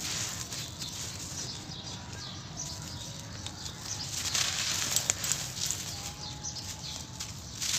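Dry sand-cement being worked by hand: powdery grit hissing as it sifts through fingers, and lumps crunching as they crumble. The crunching is densest and crackliest about four to five seconds in.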